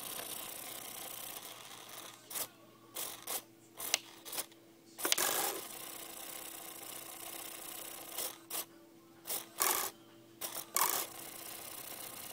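HK-5320 micro servos jittering: a steady buzz that cuts out and keeps breaking into short irregular bursts, the twitching of servos that will not hold still at their set position.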